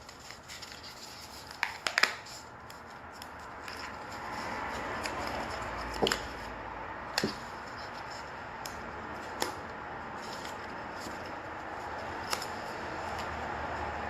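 Hands fiddling with a small stand-up photo holder from a K-pop album package: steady rustling and scraping, with several light clicks and taps as the piece is worked, a few seconds apart.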